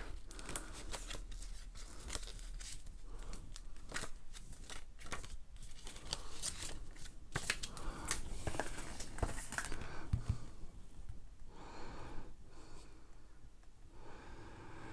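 Paper and thin cardboard being handled: a printed leaflet and a small product box rustle and crinkle, with many scattered light clicks and scrapes that thin out after about ten seconds.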